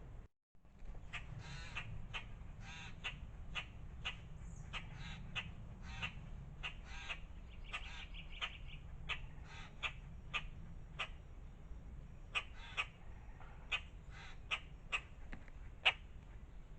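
Birds calling in short, sharp chirps and squawks, about two or three a second and irregular, over a steady low hum.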